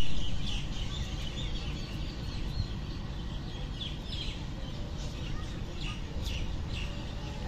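Birds chirping again and again over a steady low rumble from a diesel locomotive drawing slowly into the station.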